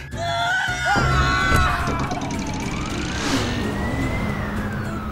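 A siren wailing, its pitch rising and falling slowly over several seconds, above a steady rumble of road traffic.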